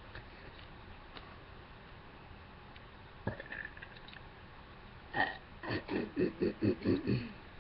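A girl burping: a short burp a little past three seconds in, then a louder, choppy burp broken into several quick pulses near the end.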